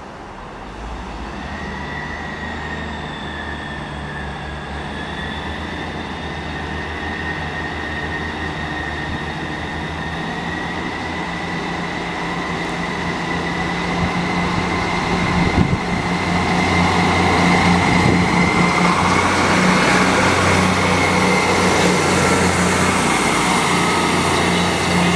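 Class 158 Express Sprinter diesel multiple unit pulling away and passing close by, its underfloor diesel engines running under power and growing steadily louder as it approaches. A steady whine and a thin whistle that climbs in pitch ride over the engine note, with a single knock from the running gear partway through.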